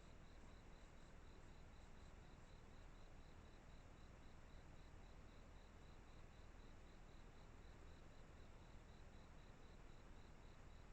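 Faint insect chirping, like a cricket, in an even rhythm of about three to four high chirps a second over low background hiss.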